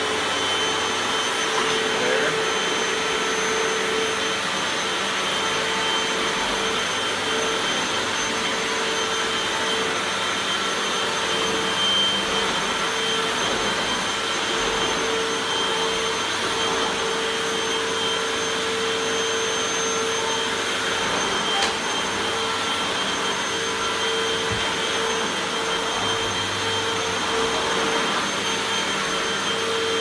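Hoover WindTunnel Rewind bagless upright vacuum cleaner, a 12-amp model, running steadily at full power: a steady whine over the rush of air. It is pushed back and forth over a bare hardwood floor, with no carpet and no dirt to pick up.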